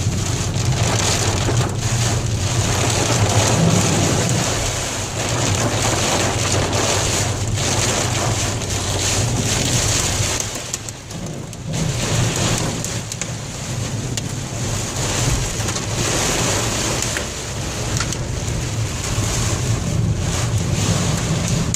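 Heavy rain hitting a moving car's roof and windshield, over the steady low hum of the car and its tyres on the wet road. The rain noise eases for a moment about halfway through.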